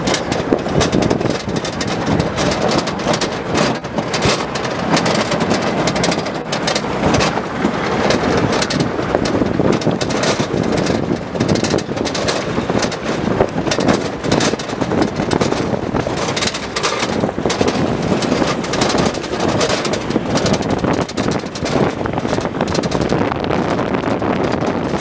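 Open-sided Land Rover Defender driving over a rough, rocky dirt track: the engine running under a constant clatter of the body and fittings jolting, with wind buffeting the microphone.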